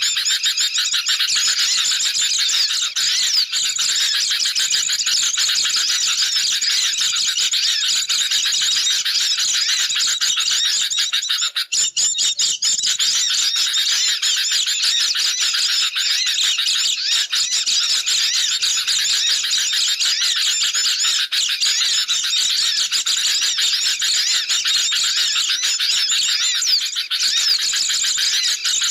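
Bird-lure recording of a flock of sooty-headed bulbuls mixed with white-eyes in constant, busy chatter: many high, overlapping chirps and twitters with no break.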